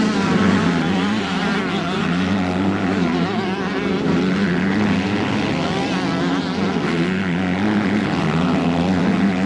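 Several motocross bikes racing, their engines revving up and down over one another in a loud, continuous din.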